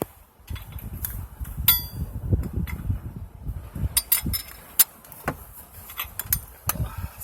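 Metal clicks and clinks of a 7/8-inch wrench working a tight transmission oil pressure switch loose in an engine bay, over low handling rumble. One clink about a second and a half in rings briefly.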